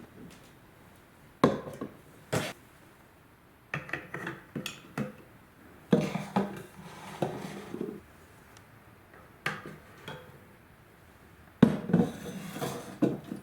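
Marbles rolling along a wooden marble-run track in several bursts of rolling rumble, clacking against the wooden pieces and each other, with sharp single clicks in between.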